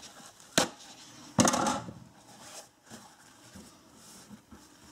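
Kitchen paper towel pulled from a roll and torn off: a sharp tap, then a short tearing rustle about a second and a half in, followed by faint rustling as the sheet is handled.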